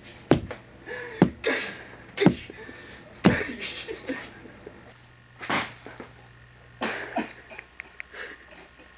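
Boxing gloves smacking into a person, four sharp hits about a second apart, followed by two longer, hissing sounds about a second and a half apart.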